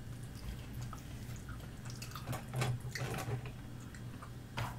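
Soft clicks and taps of chopsticks and wooden skewers as fish cake is slid off into a bowl of broth, with small drips of liquid, over a low steady hum.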